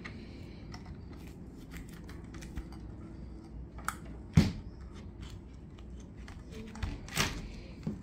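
Clicks and light metallic rattles of a keypad lever lock being handled and fitted against a door, with two louder knocks about four and a half and seven seconds in.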